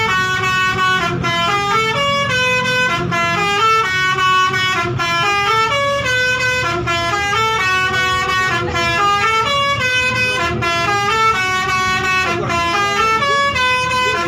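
Basuri musical horn on a bus playing a repeating tune of stepped notes, the phrase coming round about every two seconds, over a low rumble. It cuts off suddenly at the very end.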